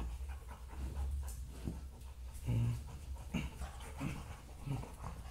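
Dog panting as it wrestles and mouths a large plush toy, with a few short low growls, the loudest about halfway through.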